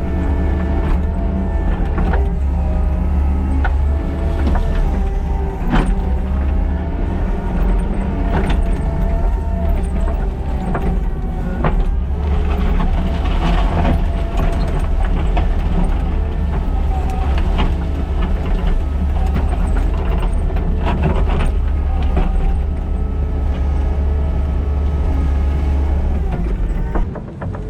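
Kubota SVL97-2 compact track loader's diesel engine running steadily under load while grading, with scattered sharp clanks and knocks from the machine working.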